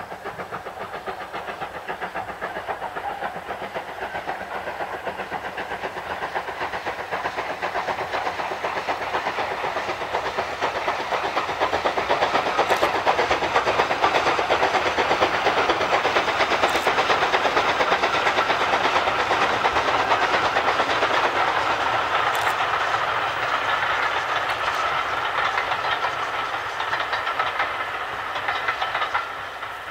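Steam locomotive hauling a train of passenger coaches past, its rapid exhaust beats and the running of the train growing louder over the first dozen seconds, staying strong for about ten seconds, then fading toward the end.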